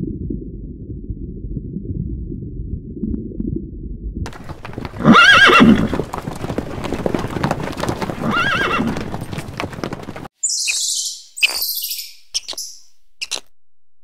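A low muffled rumble for about four seconds, then a herd of horses galloping, dense hoofbeats with two whinnies, the first the loudest. The hoofbeats cut off about ten seconds in, giving way to a few short, high chirps.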